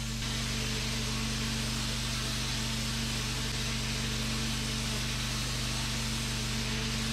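Pressure washer blasting a concrete patio: the steady hiss of the high-pressure water jet hitting the concrete over the constant low hum of the washer's motor.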